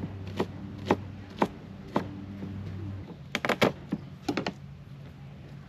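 Knife knocking on a plastic cutting board while chopping garlic cloves: single cuts about two a second, then a quick flurry of rapid chops a little past the halfway point.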